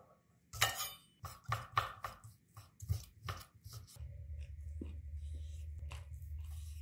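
Chef's knife slicing grilled chicken breast on a wooden cutting board: a quick series of sharp knocks as the blade cuts through and meets the board, about ten in three seconds. Then a steady low hum comes in, with softer cuts over it.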